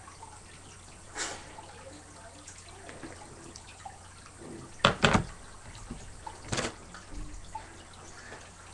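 A few sharp knocks and bumps over a faint room background, the loudest a close pair about five seconds in.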